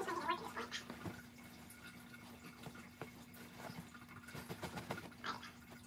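Cloth rustling and flapping as a floral pillowcase is shaken out and pulled over a pillow, in short irregular bursts, the loudest at the very start, over a faint steady hum.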